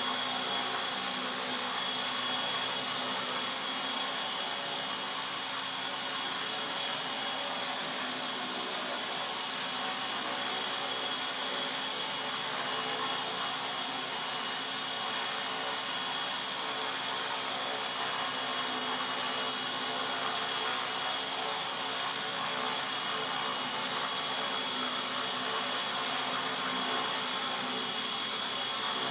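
Align T-Rex 450 SE electric RC helicopter hovering: a steady high-pitched whine from its brushless motor and drive gears over the hiss of the spinning rotors.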